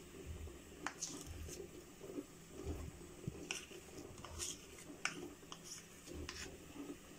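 Spoon scraping and tapping as solid ghee is scooped out of a bowl and dropped into an empty nonstick kadai: a handful of faint, short scrapes and clicks.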